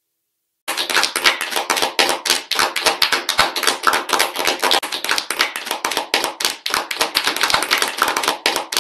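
Applause: many people clapping, starting abruptly under a second in and carrying on as a dense, steady patter.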